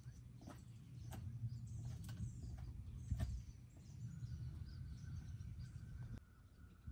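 Faint outdoor ambience: birds chirping over a low rumble, with a few sharp clicks in the first three seconds. A steady high tone comes in about four seconds in.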